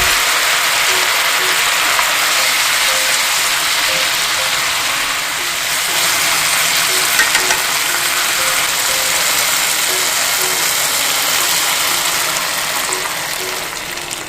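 Food sizzling in a hot frying pan: a steady, dense hiss that fades away near the end.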